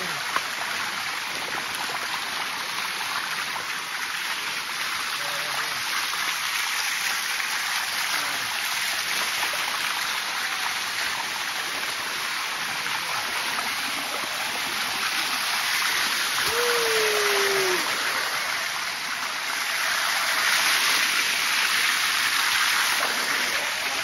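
Steady rush of waterfall water tumbling over rocks, swelling a little louder about two-thirds of the way through and again near the end. A short falling note sounds once partway through.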